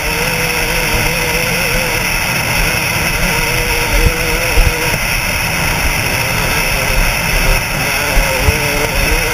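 KTM 200 SX two-stroke single-cylinder engine running at a steady, slightly wavering pitch as the dirt bike rides along a desert trail, with heavy wind noise on the microphone. A few sharp knocks come about four seconds in and again near eight seconds.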